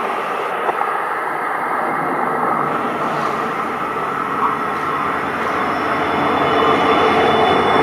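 EMD GT46ACe (WDG 4D) diesel locomotive approaching with its train, engine and wheel-on-rail noise steady and growing louder toward the end.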